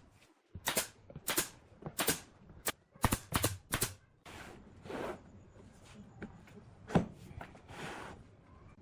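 A quick run of about eight sharp knocks in the first few seconds, then softer scraping and brushing noises with one more sharp knock about seven seconds in.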